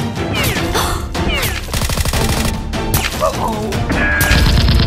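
Action-film gunfire sound effects over background music. Shots and a rapid burst of automatic fire about two seconds in are mixed with short falling whistles.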